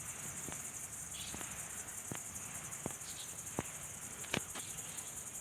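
Insects, crickets most likely, chirring steadily in a dense high-pitched chorus, with about six sharp clicks scattered through it; the loudest click comes near the end.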